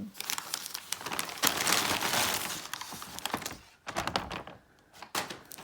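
Paper gift bag rustling and crinkling as items are taken out of it, dense for about three and a half seconds, then a few separate clicks and taps.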